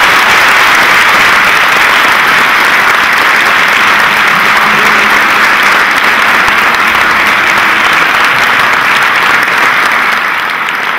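Large audience applauding, many hands clapping loudly and steadily, easing slightly near the end: the applause that closes a speech.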